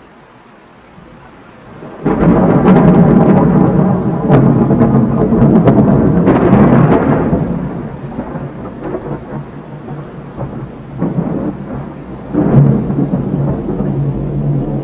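Thunder from a nearby lightning strike: a loud clap about two seconds in that rolls on for several seconds and then dies down, followed by a second sharp clap near the end.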